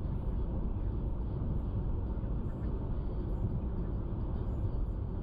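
Steady rumble of a car being driven, heard inside the cabin: road and wind noise, with strong gusty wind outside.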